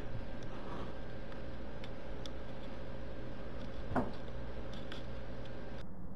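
Steady background hiss with a faint hum, scattered faint ticks and one soft knock about four seconds in. The cat calls have stopped.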